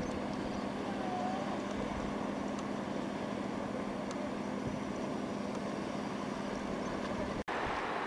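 Beach ambience: a steady wash of surf and wind noise with a steady low hum under it, broken by a brief dropout near the end.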